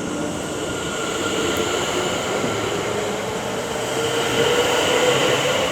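Class 730 Aventra electric multiple unit pulling away from the platform: a steady rumble of the train with a whine from its traction motors that rises slowly in pitch as it gathers speed.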